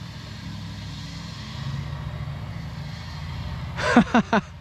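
Diesel truck engine rumbling steadily, its sound swelling a little about two seconds in; its deep note suggests an aftermarket engine tune. Near the end, three short, loud calls sweep quickly downward in pitch, one after another.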